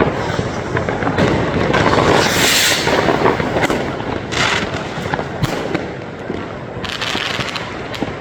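Dense fireworks and firecrackers going off continuously, a steady stream of crackling and popping bangs, with three brief hisses about two, four and seven seconds in.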